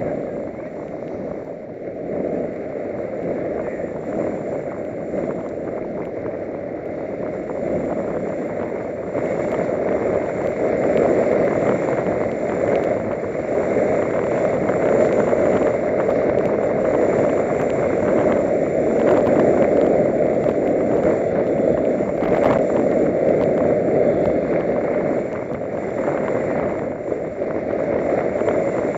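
Steady rushing noise of fast downhill skiing on groomed snow: wind over the camera microphone mixed with the skis carving. It gets louder from about ten seconds in.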